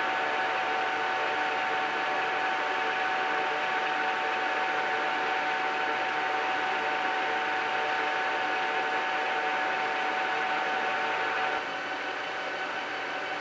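Kingston HL4000 engine lathe running, a steady mechanical hum with a high whine. Near the end the whine drops out and the sound gets a little quieter.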